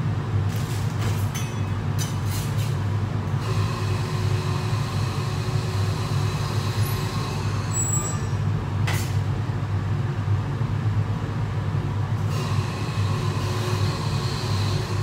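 Steady low rumble of a commercial kitchen's extraction hood fan, with a few light knocks and clatters of sandwich preparation over it.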